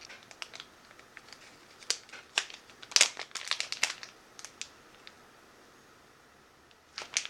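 Crinkly plastic packaging of a wax tart being handled, in scattered sharp crackles that come thickest about three seconds in and stop for a couple of seconds near the end.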